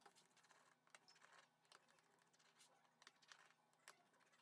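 Near silence, with a few faint small clicks and ticks scattered through it, as of light handling of the phone.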